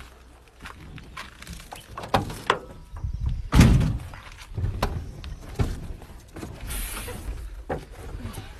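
Scattered knocks, clicks and rustling from climbing up into a heavy truck's cab, with one heavy thump about three and a half seconds in and a brief hiss near the seventh second.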